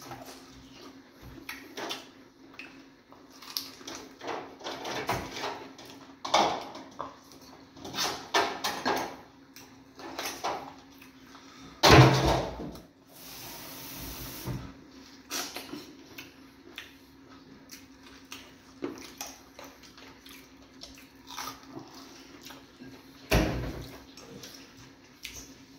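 Close-up eating sounds as fufu with egusi soup is eaten by hand: irregular chewing and mouth noises, with a louder sudden noise about twelve seconds in and another short one near the end.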